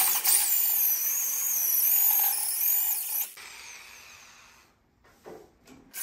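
Corded electric drill with a long twist bit running and cutting into the steel pedal support bracket, with a high, wavering whine. It stops about three seconds in and the sound fades away.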